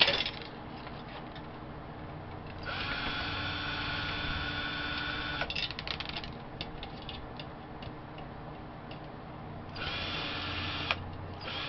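A small electric motor whines steadily at a fixed pitch for about three seconds, stops, and starts again near the end, with light clicks and knocks of handling in between.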